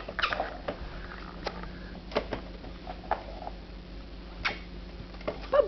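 A baby making kiss noises: short, sharp lip smacks, about eight of them at irregular intervals.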